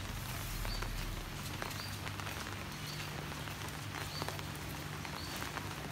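Footsteps of a person walking along a paved path outdoors, over a steady background hiss, with a short high chirp repeating about once a second.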